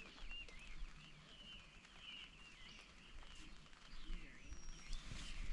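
Birds twittering continuously and faintly, over a low outdoor background hiss.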